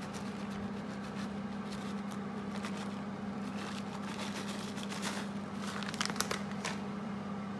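Plastic bag of shredded cheese crinkling as it is shaken out over a baking dish, in short irregular bursts, the sharpest a little past the middle. A steady low hum runs underneath.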